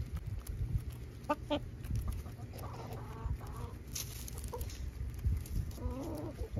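Hens clucking in short runs while they peck at food on the ground, over a steady low rumble.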